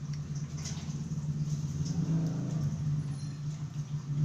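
A steady low mechanical hum, like a motor running, with a faint click or two.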